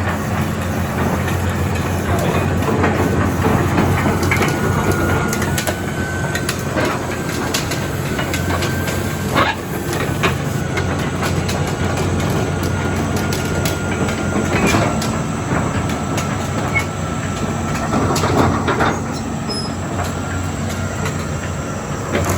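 Caterpillar 320D excavator running, its diesel engine steady under a thin, wavering high whine, with frequent metallic clanks and knocks from the machine.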